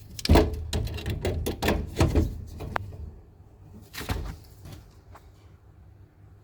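Pliers squeezing a spring hose clip on a washing machine's drain hose: a quick run of clicks and knocks for the first two seconds or so, then one more knock about four seconds in.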